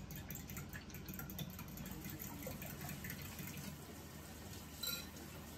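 Fork beating an egg and goat-milk mixture in a glass bowl: faint liquid sloshing with light ticks of the fork against the glass, and one sharper click near the end.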